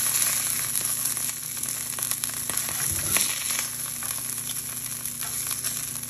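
Salmon fillets sizzling in hot oil in a cast-iron skillet: a steady frying hiss. Short clicks and scrapes come through as a spatula works the fillets against the pan.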